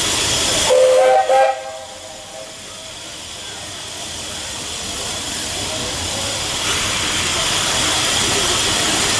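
Steam locomotive venting steam with a loud hiss, then two short blasts on its steam whistle about a second in, the usual signal that the train is about to move off. After that the steam hiss builds steadily as the engine gets under way.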